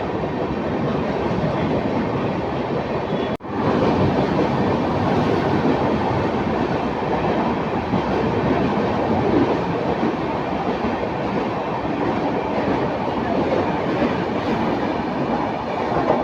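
Duranta Express train running at speed: a loud, steady rush of wheels on rails with some clickety-clack. The sound cuts out abruptly for a moment about three seconds in.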